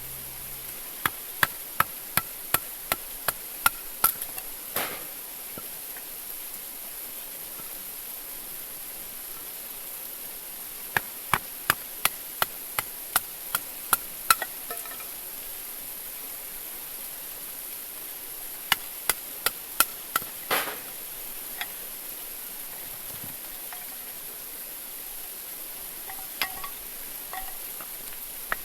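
Tent stakes being hammered into the ground: three runs of sharp, rapid strikes, about two to three a second, with a few lighter knocks near the end.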